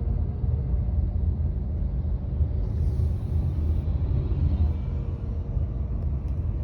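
Mercedes-Benz W205 C-Class car running with a steady low rumble, in a recording made to capture an abnormal noise it makes when pulling away.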